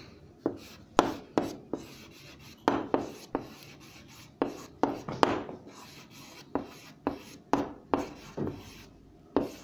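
A pen writing: a dozen or more short, scratchy strokes at uneven spacing.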